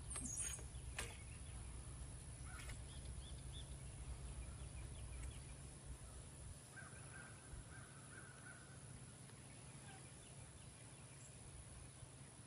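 Faint outdoor ambience with distant bird calls over a steady low hum, and two sharp clicks about a second apart at the start.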